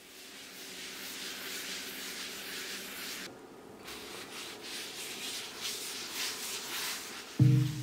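A cloth pad rubbed back and forth by hand over a wood-and-epoxy bench top, a scratchy scrubbing with a short break a little after three seconds in. Music with a beat comes in just before the end.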